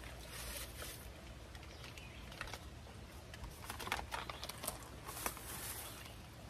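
Onion soup mix packet crinkling and rustling in the hands as it is opened, in short scattered crackles, the sharpest about four and five seconds in.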